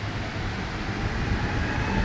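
Steady low rumble inside a Montreal Metro Azur (MPM-10) train car, growing a little louder toward the end.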